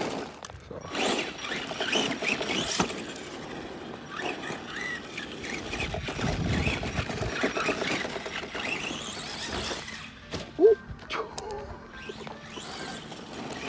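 Arrma Granite Voltage 1/10-scale RC monster truck driving fast, its brushed 540 electric motor whining up and down in pitch with the throttle over the scrub of its tires on pavement and grass. A short, loud squeak about ten and a half seconds in.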